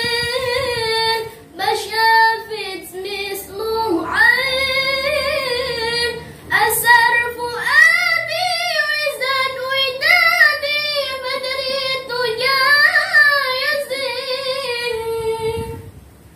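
A young woman singing the chorus of an Arabic sholawat (devotional song praising the Prophet) unaccompanied, in long, ornamented, wavering notes with short breaths between phrases, with a man singing along more quietly. The singing stops just before the end.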